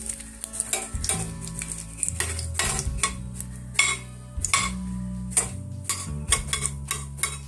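Metal spatula scraping and clinking again and again against a stainless steel frying pan, stirring whole dried red chillies and spices as they fry in hot ghee, with a faint sizzle underneath.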